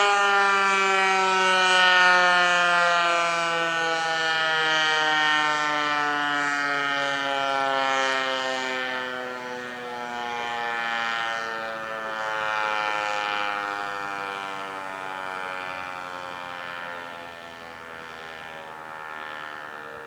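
American Signal T-121 outdoor warning siren winding down at the end of its steady Alert tone. Its single pitch slides slowly and steadily lower and grows fainter, swelling and fading in slow waves every few seconds.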